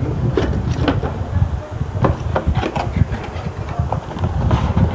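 Handling noise: irregular knocks, clicks and rubbing as hardware is picked up and moved about, over a low rumble.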